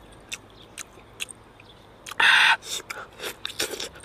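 Crispy fried chicken being torn and eaten: scattered sharp crackles from the fried coating, a short loud rasp about two seconds in, then a run of quick crunchy clicks near the end as it is bitten and chewed.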